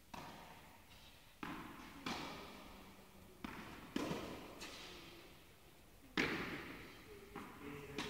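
Tennis balls being struck by rackets and bouncing on an indoor hard court during a rally: six sharp pops at uneven intervals, each followed by a long echo from the big hall.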